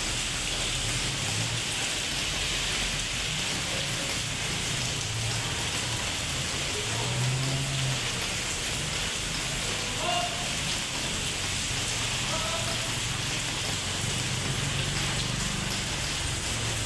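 Steady rain falling and splashing on hard surfaces, with a low rumble underneath that comes and goes.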